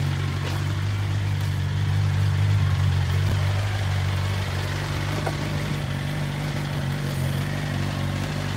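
Motorcycle engine idling steadily, a constant low hum with no revving.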